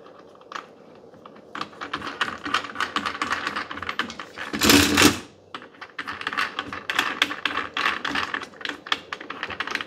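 Quick, irregular clicking and rattling of the tripod's bowl locking handle as it is turned and tightened up under the bowl adapter, with a louder half-second rubbing noise about five seconds in.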